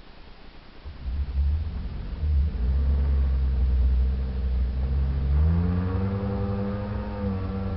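Sea-Doo jet ski engine running under a low rumble. About five seconds in, its pitch rises as the throttle opens, then holds steady.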